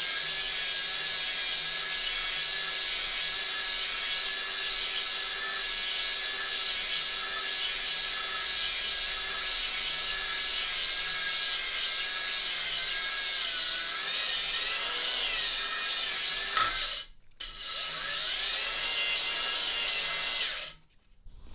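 Variable-speed electric drill spinning a DIY honing tool in a cylinder bore of a Reliant 750cc engine block: a steady motor whine with the hone's stones scraping the bore, on the final honing pass. The drill stops briefly about 17 seconds in, runs again, and stops just before the end.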